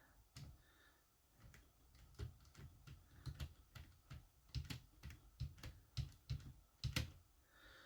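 Faint, irregular clicking and tapping of small plastic and metal RC car parts and hand tools being handled, a few clicks a second.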